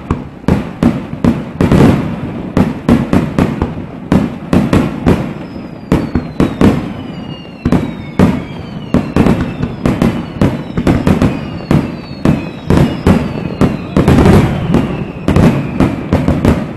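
Fireworks display: a rapid barrage of aerial shell bursts, several bangs a second. From about five seconds in, a run of falling whistles sounds over the bangs.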